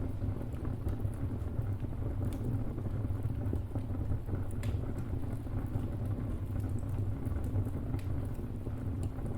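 Wood fire burning with a steady low rumble and scattered sharp crackles and pops of burning timber, a few louder snaps about two, four and a half and eight seconds in.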